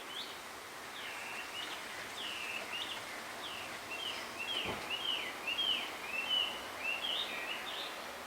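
Male blue rock thrush singing to attract a female: a run of quick, slurred whistled notes, rising and falling, that gets louder past the middle.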